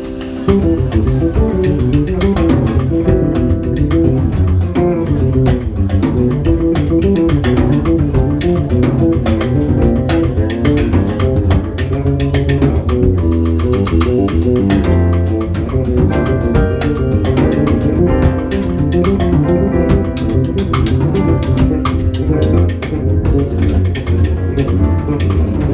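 Live jazz quartet playing, with the electric bass carrying a busy line of quick notes over the drum kit.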